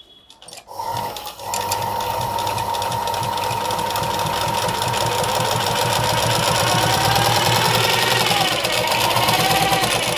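Tailoring sewing machine stitching a double-fold seam. It starts with a short burst just under a second in, then runs steadily with a fast, even rattle and a steady whine, stopping just before the end.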